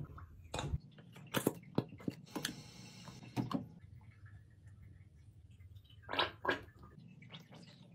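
Containers and packaging being handled and set down during a fridge restock: scattered taps, clicks and knocks, with a brief hissing rush about two and a half seconds in.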